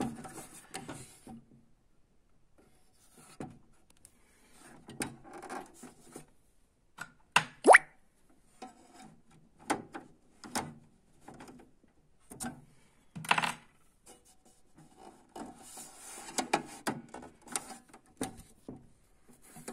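Plastic clicks and knocks, with some rubbing and handling noise, as a replacement pickup roller is pressed and snapped into its holders inside an HP LaserJet Pro MFP M127fw printer. The sharpest clicks come about a third of the way in and again about two-thirds in.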